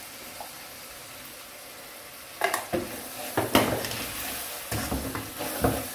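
Mutton and tomato masala sizzling steadily in a wok. From about two and a half seconds in, a wooden spatula stirs it, scraping and knocking against the pan in quick, irregular strokes.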